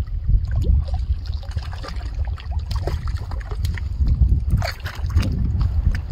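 Water splashing and sloshing in irregular bursts as a hooked brook trout is brought in at the surface, over a low wind rumble on the microphone.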